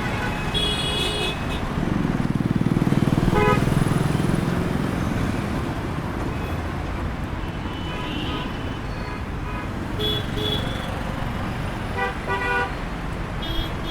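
City street traffic: a steady rumble of engines and tyres, with one vehicle passing louder about two to five seconds in, and short car horn toots every few seconds.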